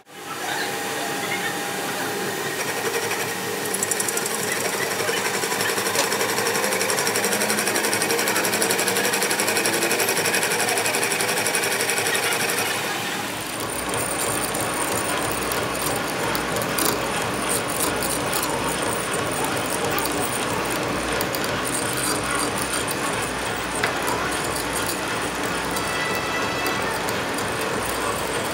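Metal lathe running while a twist drill in the tailstock bores into the end of a spinning steel workpiece: a steady mechanical clatter and hiss of cutting. The sound shifts about halfway through, when a deeper rumble joins in.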